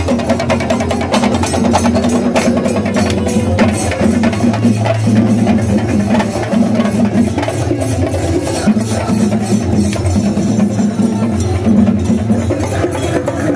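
Chenda drum ensemble playing fast, dense, continuous strokes, the percussion that accompanies a Kerala temple-festival elephant procession.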